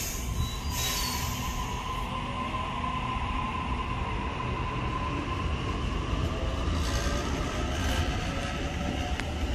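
Double-deck electric suburban trains on the line: one runs along the platform and away with a steady rumble of wheels and a steady high whine, and a Waratah train comes in near the end.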